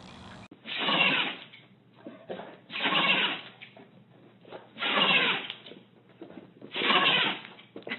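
An animal making a noisy, breathy sound four times, evenly about two seconds apart, each lasting about half a second.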